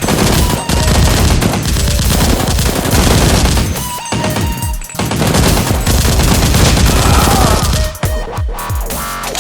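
Rapid automatic gunfire over electronic dance music, in two long volleys with a short break about four seconds in.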